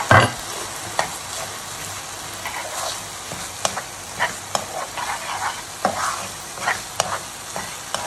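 A sauce sizzling in a pan, with chillies, spring onions and coriander just stirred in, while a spoon stirs it, scraping and tapping the pan at irregular moments. A loud knock comes right at the start.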